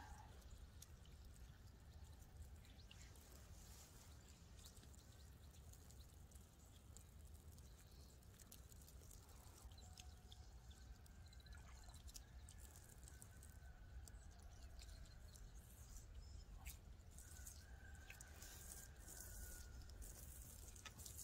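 Near silence: a faint trickle of water running out of the end of a black irrigation hose onto the ground as the hose is flushed of debris, with a low steady rumble of wind on the microphone.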